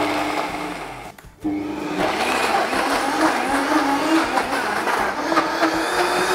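Vitamix E310 blender motor pulsed once for about a second and spinning down, then, after a brief pause, run continuously as it grinds walnuts, pecans, dates and raisins into a thick paste. The motor pitch wavers as the tamper pushes the sticky mixture down into the blades.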